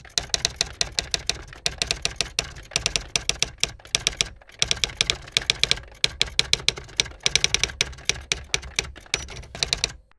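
Typewriter keys striking in quick runs of several strokes a second, with short pauses between the runs.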